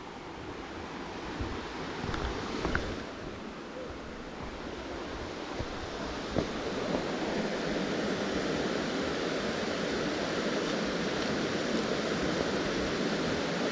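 Waterfall water rushing in a steady noisy wash, growing louder about halfway through, with a few faint clicks.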